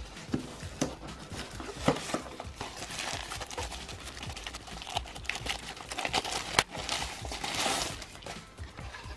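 Plastic wrapping crinkling and rustling as it is pulled open by hand to free a small set-top box, with a few sharp clicks of handling along the way.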